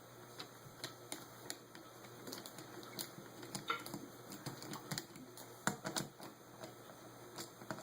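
Light, irregular clicks and taps of small metal carburetor parts and tools being handled during disassembly, with a few sharper clicks around the middle.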